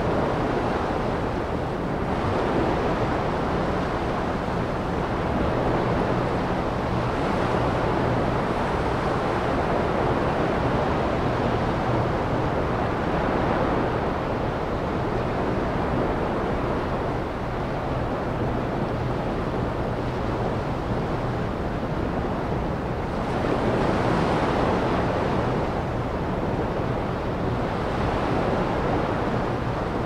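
Ocean surf washing onto a shore: a continuous rush that swells as waves break, most strongly about two, seven and twenty-four seconds in. A low steady hum lies underneath.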